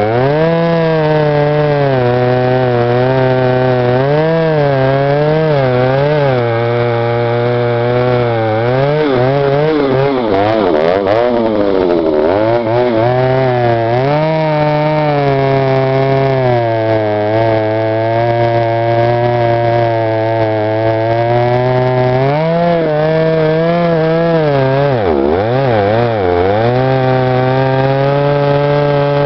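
A Stihl 076 AVEQ 111 cc two-stroke chainsaw running hard while cutting old wood. Its engine pitch keeps sagging under load and picking back up, and it is dragged down deeply twice, once near the middle and once late on.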